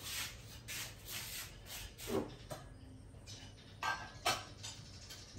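Spoon-feeding sounds: a spoon scraping and clicking in a plastic cup and against a baby macaque's mouth as it eats coconut meat. The scrapes come about three a second at first, and two sharper clicks come near the end.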